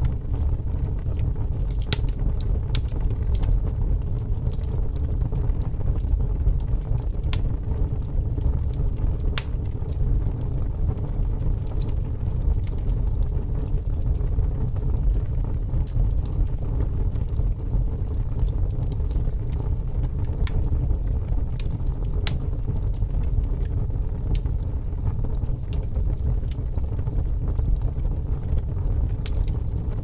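Wood fire burning in a fireplace: a steady low rumble of the flames with sharp crackles and pops from the burning logs at irregular intervals.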